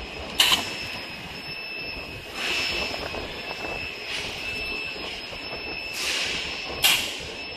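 Jerry-can palletizer machine running, with a steady high whine over mechanical noise. Two short, sharp hissing bursts, about six seconds apart, come from its pneumatic can-gripping system releasing air.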